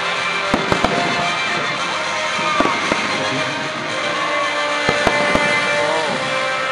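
Aerial firework shells bursting with sharp bangs that come in small clusters, about half a second in, near three seconds and around five seconds, over a steady background of music.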